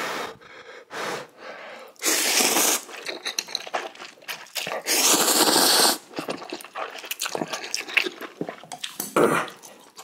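A person slurping spicy Shin Ramyun noodles off chopsticks: two long, loud slurps, about two seconds in and about five seconds in, with wet chewing and lip smacks between and after.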